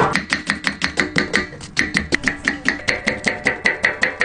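Kitchen knife chopping vegetables quickly on a wooden block, with fast, even strikes at about seven a second.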